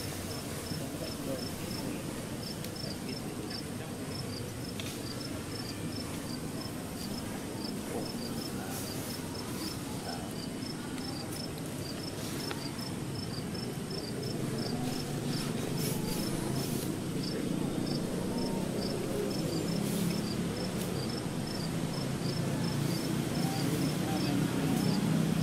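An insect chirping steadily high in pitch, about four short chirps a second, over low background noise that grows louder in the second half.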